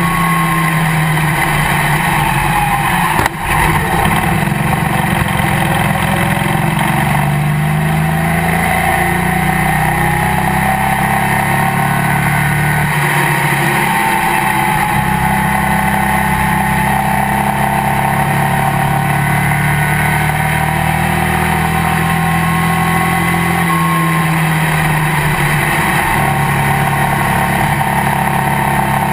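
Race car engine running hard at speed, heard from inside the cockpit, its pitch rising and falling slowly as the throttle changes. There is a brief knock about three seconds in.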